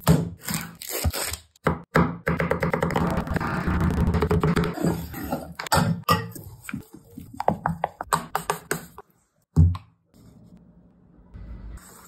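Knife chopping a dark chocolate bar on a wooden cutting board in a run of quick chops, then chocolate pieces knocking about in a glass bowl. There is one loud thunk about ten seconds in.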